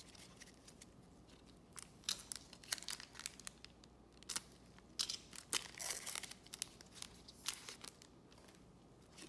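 Foil trading-card pack being torn open, its wrapper crinkling: a few seconds of sharp crackles and short rips starting about two seconds in.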